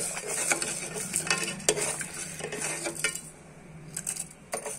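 A metal ladle stirs small rock-sugar crystals and water in a metal pan, scraping and clinking against the pan. The stirring eases after about three seconds, leaving a few more clinks near the end.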